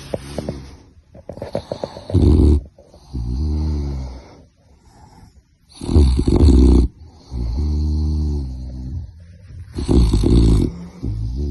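Sleeping puppy snoring, about one breath every four seconds: three breaths, each a short rough snore followed by a longer pitched note.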